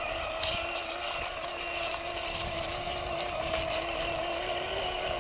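Radio-controlled scale Land Rover model crawling slowly over grass, giving a steady hum that wavers only slightly in pitch.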